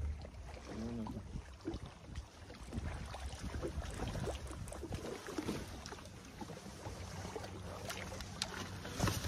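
Ambience aboard a small fishing boat on a river: steady wind and water noise, with scattered light knocks and clicks, a few sharper ones near the end.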